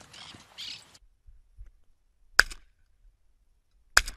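A shotgun fired twice, about a second and a half apart: two sharp, loud shots, each with a short tail.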